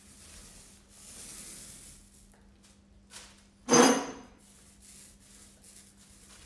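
Paint roller loaded with water-based chalk paint, rubbing in soft strokes along a furniture panel as a light sweeping pass. About four seconds in comes a single short, loud clatter.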